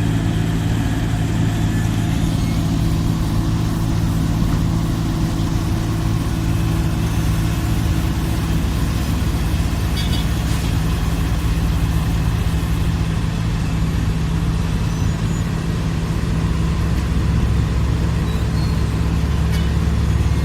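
Heavy diesel engine of a Wirtgen W 100 F road milling machine running steadily, with a deep hum that grows heavier about two-thirds of the way through.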